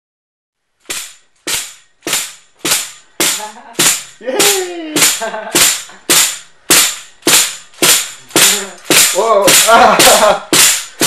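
A pogo stick bouncing, with a sharp spring-loaded impact about every 0.6 s starting about a second in. From about four seconds in, voices rise and fall in time with the bounces.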